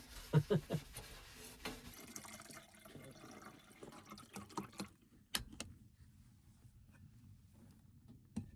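Butter sizzling on a hot wood-stove top, a steady crackling hiss that stops abruptly about five seconds in, followed by a few light clicks.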